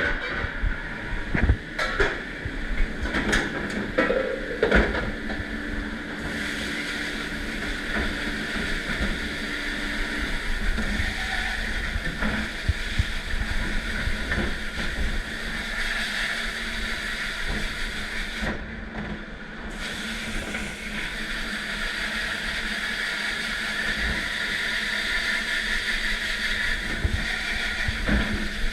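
Steady rushing noise of water spray and machinery in a commercial dish room, with several sharp knocks in the first five seconds.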